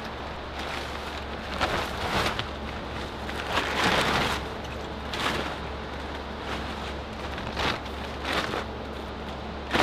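Heavy plastic shipping wrap being pulled and handled, crinkling and rustling in irregular bursts, the longest about four seconds in.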